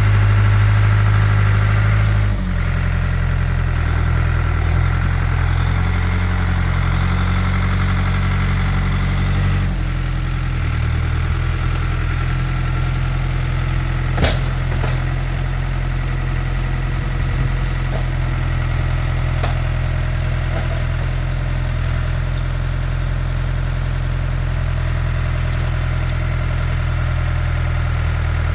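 Farm tractor's engine running steadily, dropping to a lower engine speed about 2 s in and again near 10 s, then settling at a steady idle. A single sharp knock about 14 s in.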